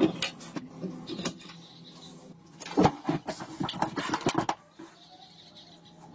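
Clicks and metallic clunks from an air rifle being handled, with a quick run of sharp knocks about three to four and a half seconds in, over a faint low hum.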